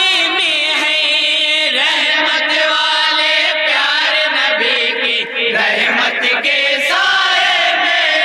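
A group of men singing an Urdu naat in chorus, with long, wavering held notes.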